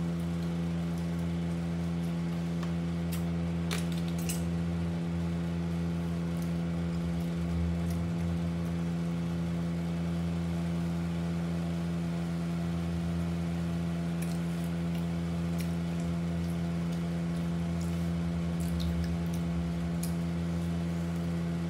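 A steady mechanical hum with several fixed pitches under a low drone, unchanging throughout, with a few faint clicks from eating off plastic food containers with a fork.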